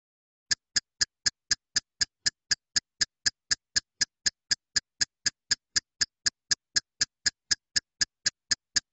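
A steady series of identical sharp ticks, about four a second, starting about half a second in: a clock-like ticking sound effect.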